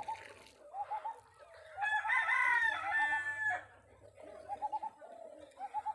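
A rooster crowing once, starting about two seconds in and lasting nearly two seconds, with hens giving short repeated clucks before and after it.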